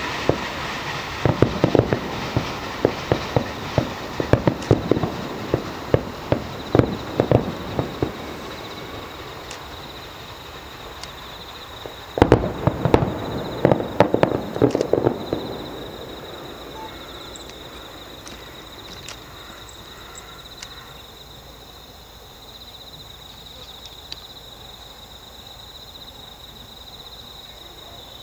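Aerial fireworks shells bursting: a rapid run of bangs for the first eight seconds, a loud bang about twelve seconds in followed by another flurry, then the explosions stop.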